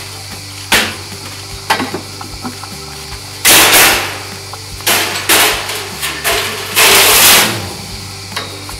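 A metal-framed enclosure door is handled and dragged open: two sharp knocks, then three loud rasping scrapes, each about half a second long, over steady background music.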